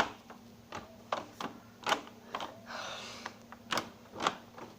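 A string of sharp knocks and clicks, about eight in all, with a short scraping rush in the middle: a room window being handled and pushed to close, its frame and latch knocking.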